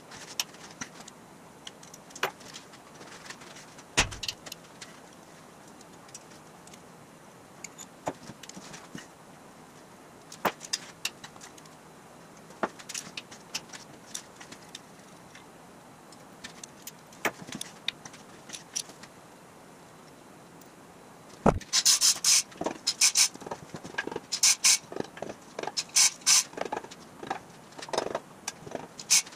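Scattered metal clinks and knocks of hand tools on the bare cylinder head of a Jaguar 2.4 L XK6 engine being dismantled. About two-thirds of the way in come repeated quick runs of a hand ratchet clicking as nuts are loosened.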